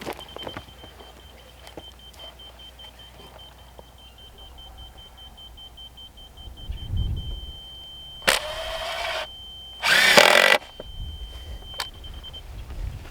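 Laser level receiver beeping. The beeps quicken, then run together into one steady tone as the form board comes to level. Two short bursts of a power drill driving screws into the form come about eight and ten seconds in; the second is the louder.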